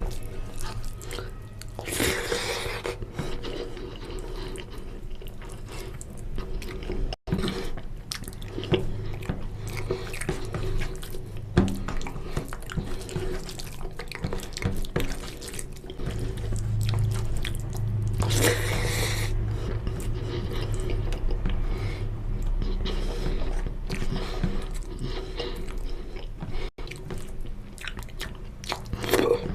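Close-up chewing and wet mouth sounds of someone eating oily mutton fat curry with rice, over a steady low hum. Two louder wet bursts stand out, about two seconds in and again past the middle.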